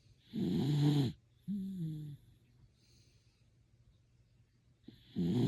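Shiba Inu snoring in its sleep. A loud rasping snore comes about half a second in, a shorter, softer one follows right after, and after a pause of a few seconds another loud snore comes near the end.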